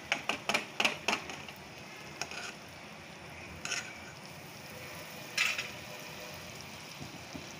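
Butter sizzling as it melts in a hot non-stick frying pan, with a spatula knocking and scraping against the pan several times in quick succession in the first second, and a few more times later.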